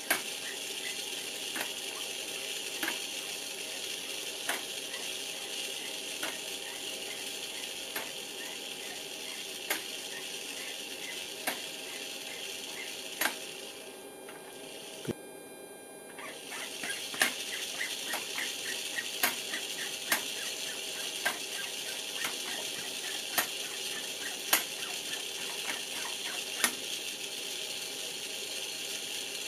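The servo motor and gear train of a Honeywell fuel quantity and gross weight indicator running as it drives the drum counters, making a steady whir with a sharp tick every second or so. It stops for about two seconds midway, then runs again with quicker ticks. The servo is following the input voltage as the potentiometer is turned.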